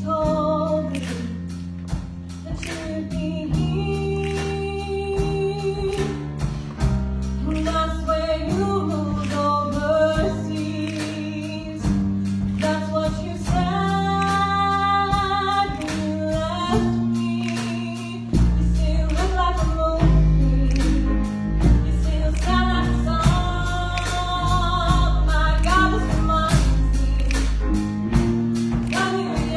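Singers performing a song live with a band, with voices over drums and bass. The bass gets much heavier about two-thirds of the way through.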